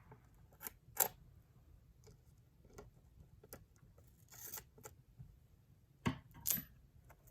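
Crayola scissors snipping packing tape at the corner of a pocket notebook cover: a few sharp clicks near the start and two louder snips near the end. A brief rustle of tape or paper handling comes about halfway.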